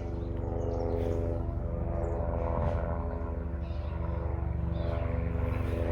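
A steady engine drone: a low, even-pitched hum that holds its pitch throughout.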